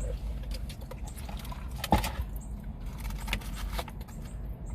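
Close-miked eating: chewing and mouth clicks with scattered crackles, a sharper one about two seconds in, over a low steady rumble.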